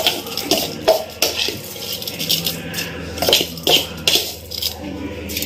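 Soaked rice being added to a stainless-steel mixer-grinder jar: scattered clinks and rattles against the steel, with sharp ones about a second in and again past three seconds.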